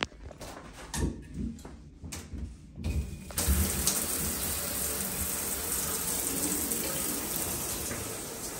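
A few handling bumps and knocks, then about three seconds in a shower is turned on and its water runs in a steady hiss.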